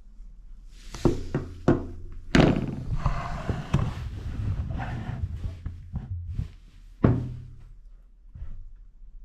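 Hands handling smartphones and their packaging at a wooden table. Several sharp knocks and thuds, the loudest about a second in, at about two and a half seconds, and about seven seconds in, with rubbing and rustling between them.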